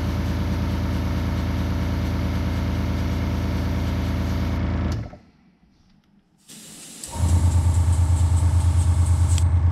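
Airbrush air compressor running with a steady low hum, with a hiss of air from the airbrush over it. About five seconds in it cuts out almost to silence, then comes back louder with a pulsing beat about two seconds later.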